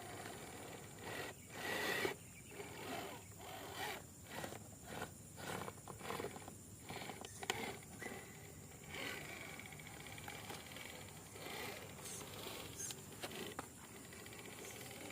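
Radio-controlled truck's electric motor and drivetrain whirring in repeated short throttle bursts, about one a second, then running more evenly in the last few seconds.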